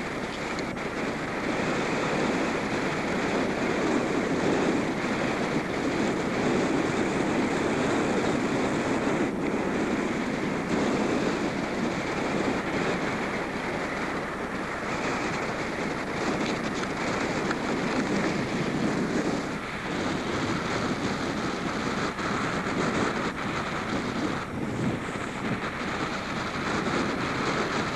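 Wind blowing across the microphone: a steady rushing noise that swells and eases a little.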